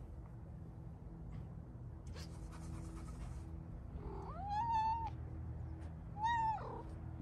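A cat meowing twice up close, each meow rising and then falling in pitch, the first longer than the second, over a steady low hum.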